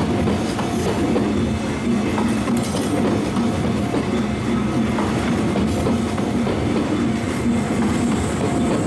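Kintetsu Minami-Osaka Line train passing over a level crossing, a steady loud rumble of wheels running on the rails.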